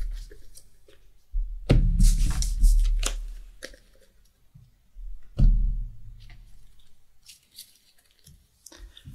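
Trading cards being handled on a tabletop playmat: light slides and clicks of cards being moved and set down, with two knocks against the table, about two seconds and five seconds in.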